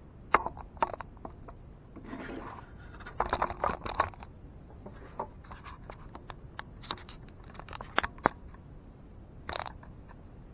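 Handling noise on a workbench: sharp clicks and knocks, a brief scrape about two seconds in and a cluster of knocks a second later, as the camera is picked up, set in place and things are moved about near it.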